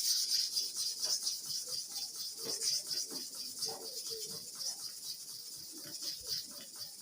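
Steel hair-clipper blade rubbed back and forth on an oiled sharpening stone: a rapid series of short scraping strokes over a steady hiss, fading slightly toward the end.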